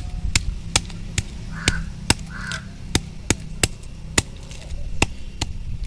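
Large knife scraping and knocking against a tilapia held on a wooden log as the fish is scaled and cleaned, giving sharp irregular taps about two times a second.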